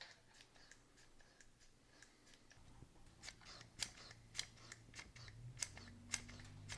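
Hand vacuum pump being squeezed over and over: a run of faint clicks from its trigger and plunger, coming quicker and louder after about three seconds. It is pulling vacuum on the N54 rear turbo's wastegate actuator.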